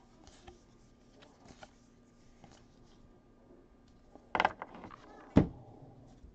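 Hands handling trading cards and a foil card pack, with faint rustles and small clicks. About four seconds in the foil wrapper gives a louder, brief crinkle, and a second later there is a single sharp knock.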